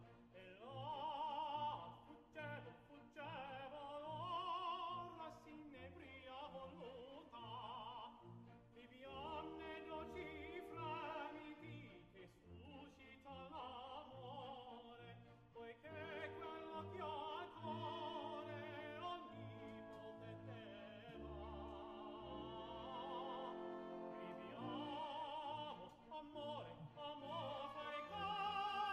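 Background music: an operatic singing voice with orchestral accompaniment.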